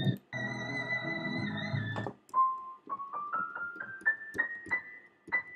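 A very high held note, a whistle-register tone, for about two seconds, wavering briefly just before it stops. Then an electronic keyboard plays single notes one after another, climbing step by step up toward the same pitch to find the sung note.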